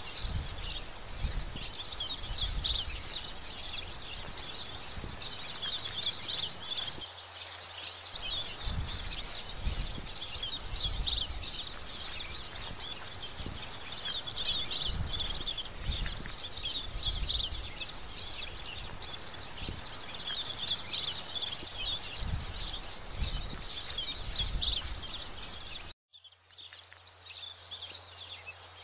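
Birds chirping continuously, with a run of low thumps that stop about 26 seconds in.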